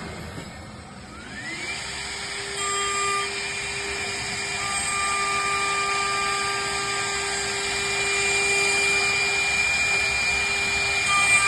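CNC wood lathe and milling machine's spindle motor spinning up, its whine rising about a second in, then running steadily at a high whine, with further tones joining a little later.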